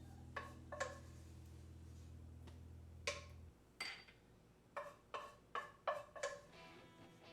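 A run of about nine sharp, short knocks, each with a brief ring, scattered unevenly over a quiet background of low steady music that cuts off about halfway through.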